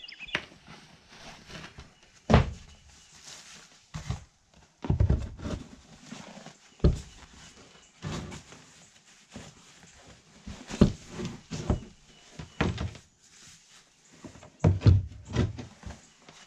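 A series of irregular thumps and knocks, about a dozen spread unevenly, with the loudest about two seconds in and near the end, as someone handles things and moves about.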